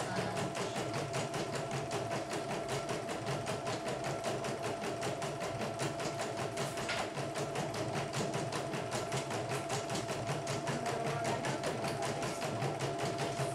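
YOKO portable computerized embroidery machine stitching a design in its hoop: a fast, even patter of needle strokes over a steady motor whine. It is a test stitch-out after servicing, and the machine is running smoothly.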